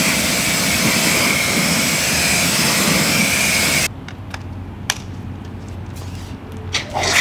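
Steady hiss of water spray that cuts off abruptly a little under four seconds in. It is followed by a quieter low hum and a few sharp clicks.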